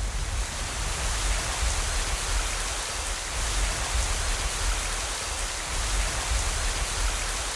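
Steady rain falling, an even hiss with a low rumble beneath it: a rain sound effect from an anime soundtrack.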